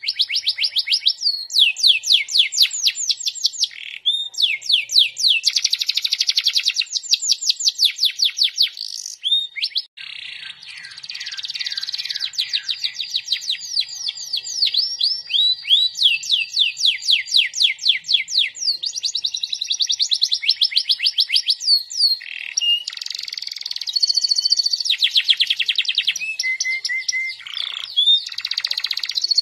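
Domestic canary singing continuously in fast rolling trills: rapid runs of repeated sweeping notes, switching to a new phrase every second or two, with a brief break about ten seconds in.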